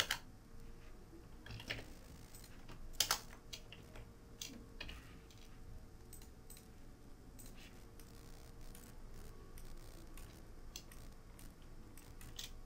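Sparse clicks and taps of a computer keyboard and mouse, with a loud cluster at the start and another about three seconds in, over a faint steady hum.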